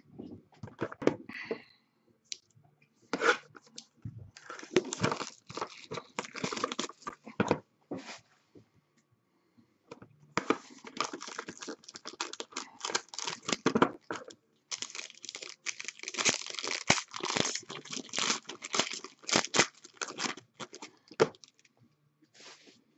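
Hands tearing and opening a sealed cardboard trading-card box, with crinkling, tearing and crackling of the wrapping and cardboard. The sound comes in two long stretches, from about four to eight seconds in and again from about ten to twenty-one seconds.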